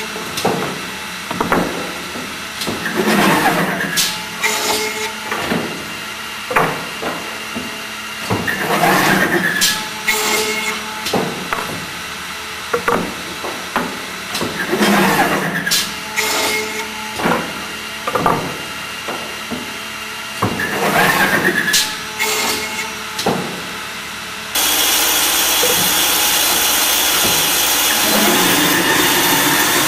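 CNC boring and routing machine working wooden parts: its spindles rise and fall in pitch as they spin up and cut, in a cycle repeating about every six seconds, with many sharp clicks and knocks from the clamps and moving carriages. About 25 seconds in, the sound cuts abruptly to a steady hiss.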